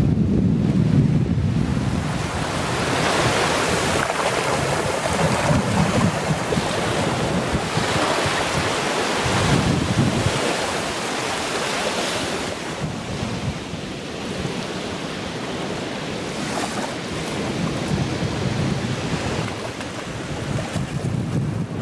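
Sea surf washing onto the beach, swelling and fading every few seconds as waves break, with wind buffeting the microphone.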